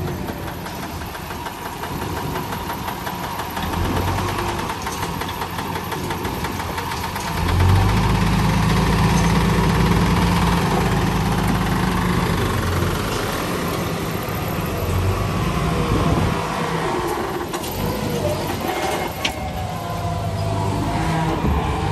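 Dump truck's diesel engine running as its hydraulic hoist tips the bed, getting louder about seven to eight seconds in, while a load of soil and rocks slides and tumbles out the back onto the ground.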